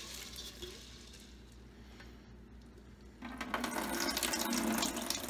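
Kitchen tap water running into a slow-cooker pot to rinse dry lentils, starting about three seconds in after a quieter stretch.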